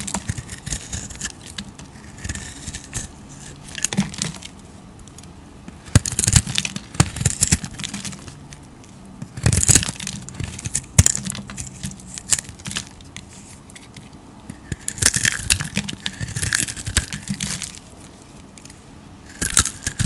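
Snap-off utility knife blade shaving and chipping a bar of soap, in separate strokes, each a quick cluster of clicks and scraping as flakes break away, with short pauses between.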